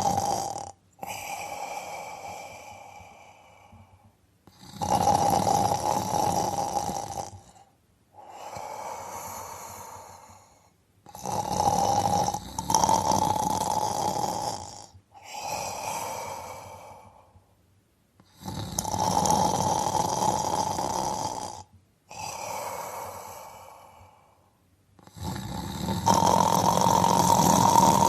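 A person snoring in a regular cycle: a loud rasping snore alternates with a quieter breath that carries a thin whistling tone. This repeats about four times, roughly every seven seconds.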